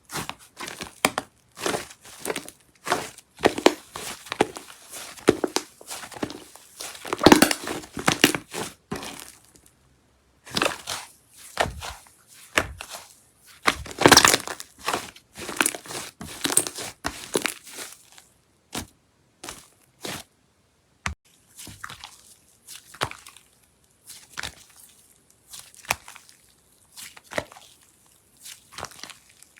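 Slime being squeezed and poked by hand, giving irregular crackling pops and crunches, dense for the first half with louder bursts about a third and half of the way in, then sparser.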